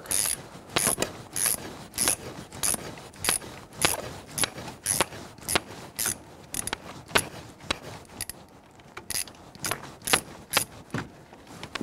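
Ratcheting hex wrench clicking in short strokes, about two to three clicks a second, working the bolts of a crank seal race puller. The clicking thins briefly about eight seconds in, then picks up again.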